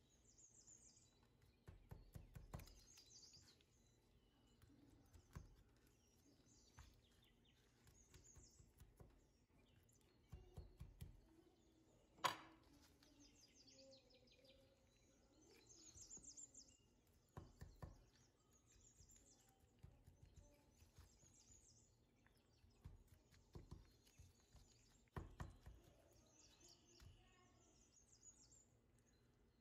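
Near silence with faint handling noise from gloved hands working raw chicken drumsticks on a plastic cutting board: soft knocks, thuds and small wet squeaks, with one sharp click about twelve seconds in.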